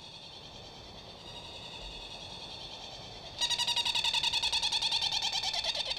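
Trindade petrel calling from its nest in a fast, rattling trill of rapid repeated pulses, starting about three and a half seconds in. It is an adult giving an open-beaked call, apparently disturbed by intruders at the nest.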